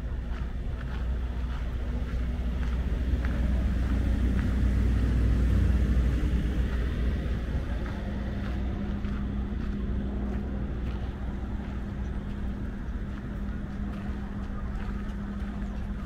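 Low engine rumble from a passing motor vehicle, swelling over the first several seconds and then easing off. A steady low hum runs underneath in the second half.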